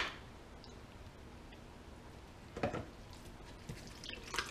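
Thick, chunky milk kefir being poured from a jar into a metal mesh strainer. A sharp click as the jar meets the strainer right at the start, a soft thud of a clump landing a little past halfway, and a few light taps near the end.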